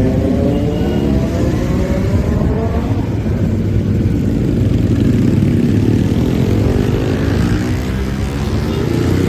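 Kawasaki Z900's inline-four engine running loud, its pitch sinking over the first few seconds and then rising again as the revs change.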